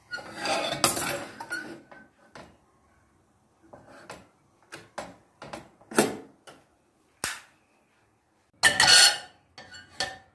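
Kitchen dishes and utensils being handled: a clatter at the start, several separate sharp knocks and clinks in the middle, and a louder clatter near the end.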